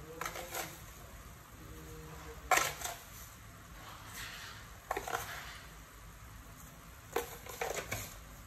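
A pot of pork leg simmering faintly, with a few sharp clinks and taps of kitchen utensils while seasonings are sprinkled in. The loudest clink comes about two and a half seconds in, and a quick cluster of taps near the end.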